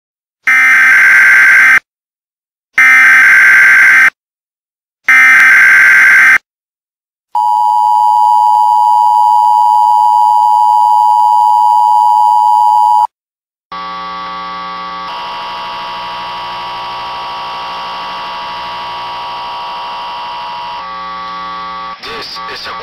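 Emergency Alert System tones. First come three short, loud screeching data bursts of the SAME header, each just over a second long with about a second between them. Then the two-tone attention signal sounds steadily for about six seconds. After a brief gap, a quieter steady buzzing drone made of many tones follows.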